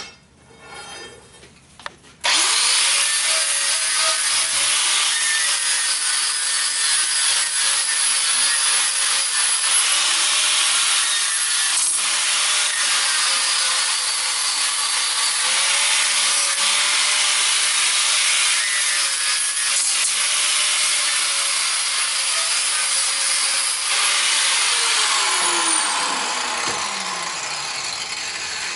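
Air-powered cut-off grinder with a cutting wheel slicing through the steel wall of a propane tank. It starts abruptly about two seconds in and gives a loud, steady hiss with a wavering whine, then the whine falls as the wheel spins down near the end.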